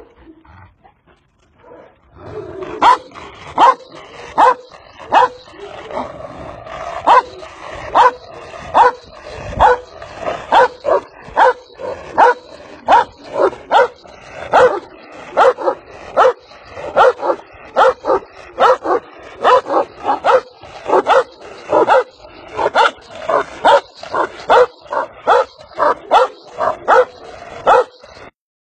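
Large dog barking over and over in a steady rhythm, about one and a half barks a second, starting about two seconds in.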